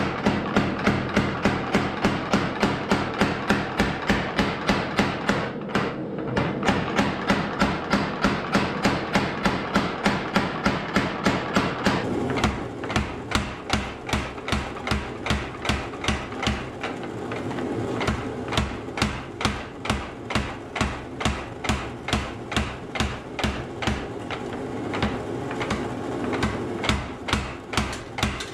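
Mechanical power hammer pounding red-hot steel between flat dies in a fast, steady run of blows, about four or five a second, drawing out and flattening a thin knife blade.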